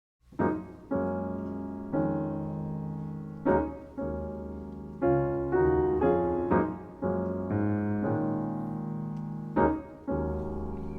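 Piano playing a slow introduction of struck chords, each left to ring and fade before the next.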